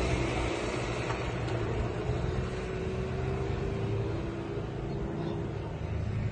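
Aircraft engine drone passing overhead: a steady pitched hum whose upper tone drifts slightly lower and fades after about five seconds.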